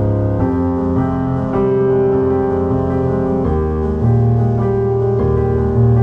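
Background piano music, with held notes and chords that change every second or so.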